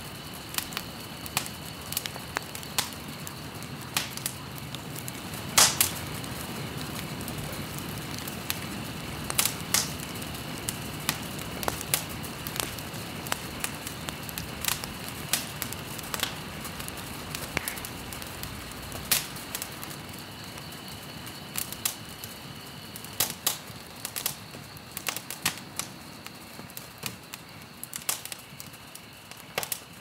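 Ambient soundscape of irregular sharp crackles and ticks over a steady hiss, with a faint steady high whine. A low rumble underneath fades away about two-thirds of the way through.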